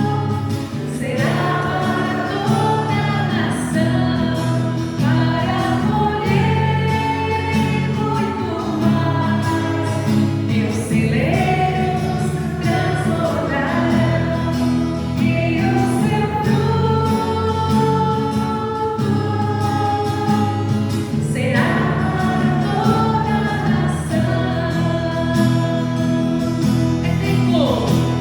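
Christian worship song: several voices singing long, held notes over a steady instrumental backing.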